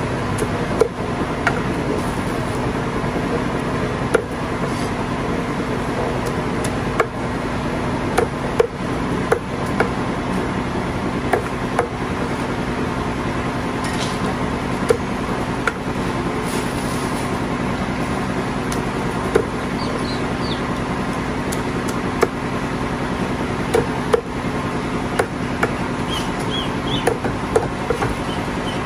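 Large meat cleaver chopping raw chickens into pieces on a thick wooden chopping block: sharp knocks at irregular intervals, sometimes several in quick succession, over a steady background hum.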